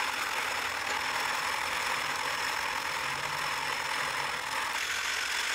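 A vehicle running steadily: a continuous, even noise with no clear rhythm.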